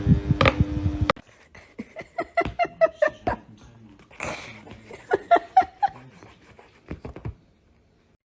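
An abrupt cut about a second in, then a pet animal's short, high calls with light clicks and knocks between them.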